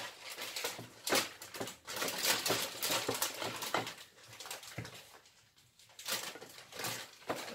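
A spatula scraping and patting cooked rice, spreading and pressing it into a glass baking dish and scooping more from a pot: a run of soft, irregular scrapes with a short pause about five seconds in.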